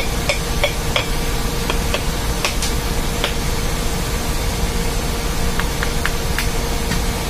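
Steady drone of running ship's machinery with a constant hum, over which come light, irregular metallic clicks and taps from gloved hands working the end shield of an electric motor.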